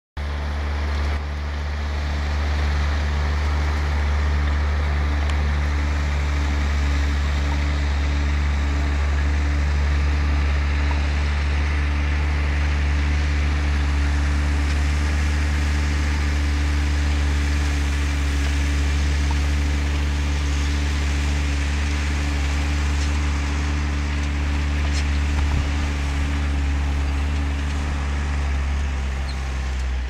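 New Holland tractor's diesel engine running steadily at constant speed under load while pulling a plough, a deep even drone.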